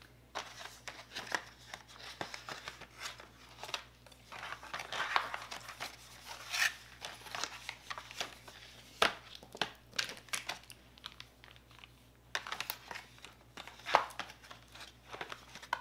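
Paint markers knocking and clicking together as they are gathered up and packed into their cardboard box, with rustling and scraping of the box and a few sharper knocks about nine and fourteen seconds in.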